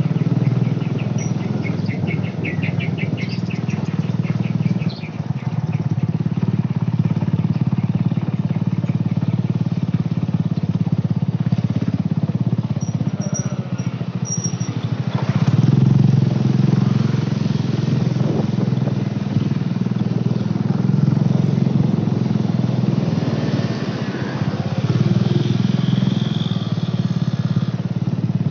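Small motorcycle engine running steadily while riding along, heard from on the bike. A brief rapid ticking sounds over it about two seconds in.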